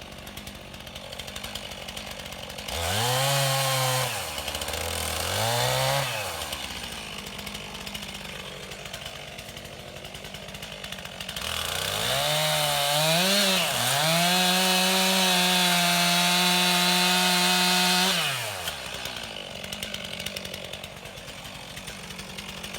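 Two-stroke chainsaw idling, blipped twice in quick succession a few seconds in, then revved up and held at high speed for about four seconds before it drops back to idle.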